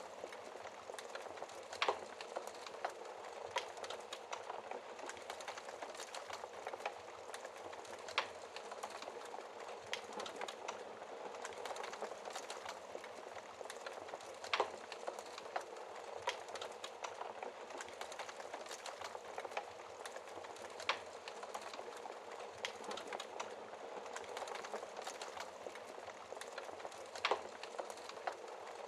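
Wood fire crackling in a fireplace: a steady hiss of the flames with many small crackles and a louder sharp pop every several seconds, five in all.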